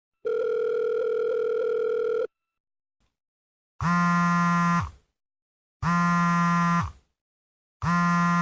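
A mobile call's ringback tone sounds once for about two seconds. Then, from a little under four seconds in, the called smartphone buzzes on vibrate against a hard surface in one-second pulses about every two seconds, its motor winding up at the start of each pulse and running down at the end.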